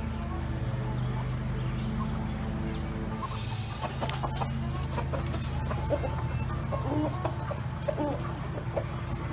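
A flock of free-range hens clucking in short calls, thickening from about four seconds in, over steady background music.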